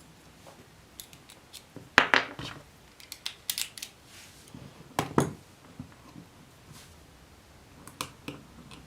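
Small metal tools and parts clicking and clinking as they are handled, a series of sharp irregular knocks with the loudest about two seconds in and a strong pair about five seconds in.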